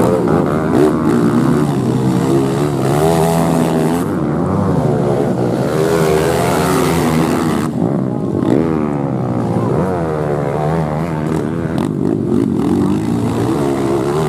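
Several four-stroke trail motorcycles racing on a dirt track, their engines revving up and down through the gears as they pass.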